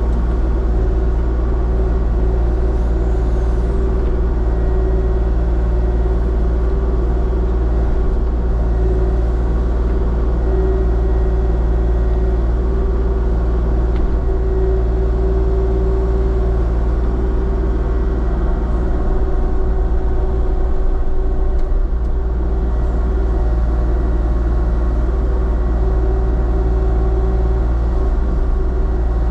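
Diesel engine of heavy equipment running steadily at a constant speed, with a deep rumble and a held tone over it.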